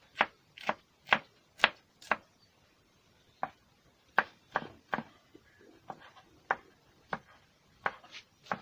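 Kitchen knife chopping green chili on a cutting board: about fifteen sharp taps of the blade on the board, roughly two a second and unevenly spaced, with a short pause about two seconds in.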